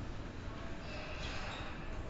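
Railway station platform ambience: a steady low rumble and hiss, with no distinct horn or single event standing out.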